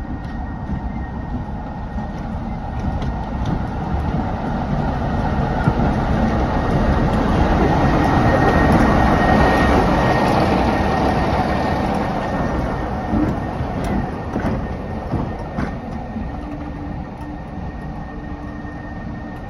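A green BR mainline diesel locomotive running past at low speed, its engine growing louder as it comes close, loudest about halfway through, then fading as it moves away. A steady high whine runs under the engine sound, and a few sharp clicks come about two-thirds of the way in.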